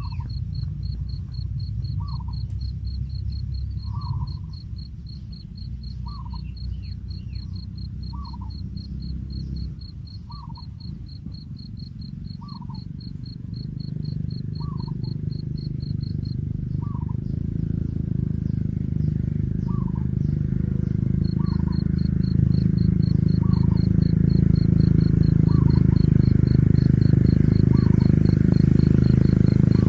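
Outdoor animal ambience. A high, rapid insect chirp pulses about four times a second and drops out for a few seconds past the middle. A short call dips slightly in pitch and repeats about every two seconds. A low rumble underneath grows louder through the second half.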